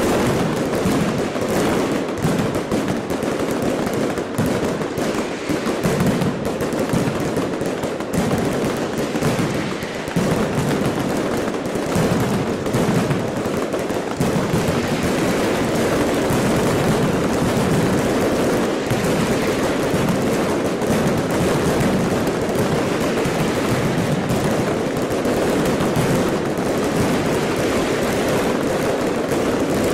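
Firecrackers going off in a dense, continuous crackle of rapid bangs with no pause.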